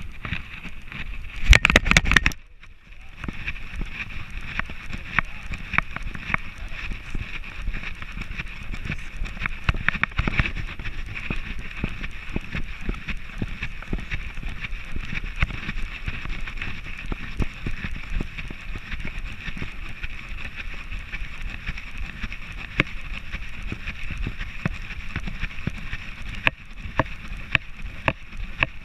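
Rubbing and irregular clicking from a camera strapped to a walking Border Collie's harness, over a steady hiss. A burst of loud knocks comes about two seconds in.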